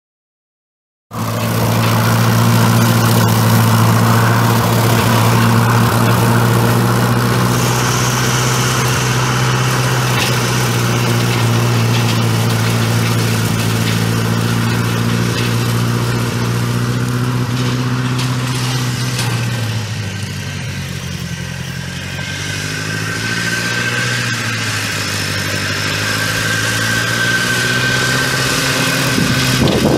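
Massey Ferguson tractor's four-cylinder gas engine running steadily. Its speed and loudness drop about two-thirds of the way through, then climb back up.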